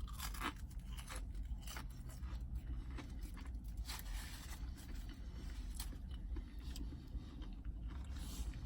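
Faint scraping and rustling of food and its wrapper being handled, over a steady low hum.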